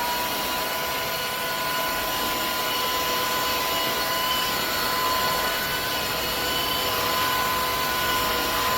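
Dreame H12S cordless wet-dry vacuum mop running steadily in auto mode: a constant high whine from its suction motor over a rushing of air.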